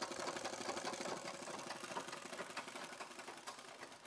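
Flat-bed leather sewing machine with a roller presser foot running, its needle stitching a leather sandal upper in a rapid, even clatter of strokes that grows quieter near the end.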